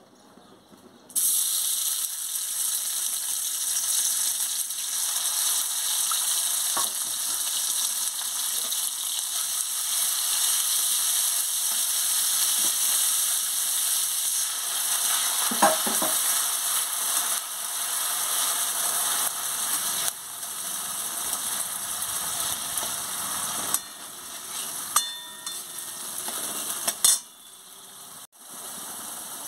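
Spice paste of onion, garlic and ginger sizzling in hot oil in a metal kadai, starting suddenly about a second in as the paste hits the oil, with a steel spatula stirring and scraping against the pan a few times. The sizzle gets quieter near the end.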